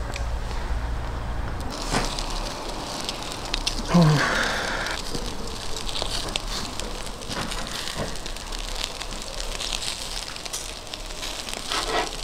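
Meat skewers grilling over hot charcoal: fat dripping onto the coals sizzles and crackles with frequent small pops. About four seconds in a brief falling, voice-like tone is the loudest sound.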